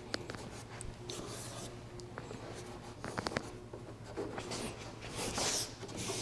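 Fingertips rubbing and pressing sanding dust into brad-nail holes on a veneered wood panel: a soft, scratchy rubbing with a few light clicks about three seconds in, briefly louder about five seconds in.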